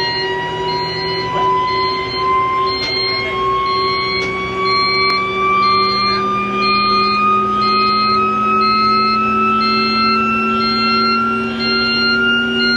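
Engine-room CO2 release alarm sounding during a test of the fixed CO2 fire suppression system: a siren tone climbing slowly and steadily in pitch, with a higher tone pulsing on and off a little more than once a second. A steady machinery hum runs underneath.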